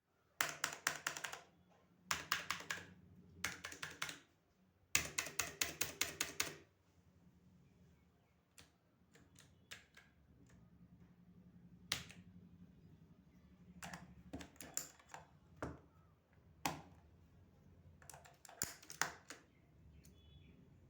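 Mechanical keyboard keys clicking under typing: four quick flurries of rapid keystrokes in the first seven seconds, then scattered single clicks and short clusters.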